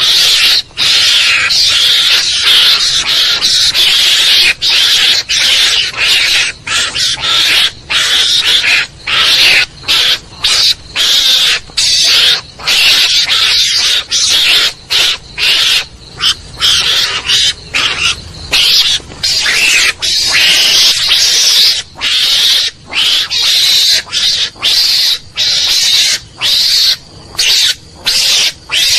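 Mongoose (garangan) lure call: a harsh, hissing screech that repeats in long runs broken by short gaps, played to draw mongooses in.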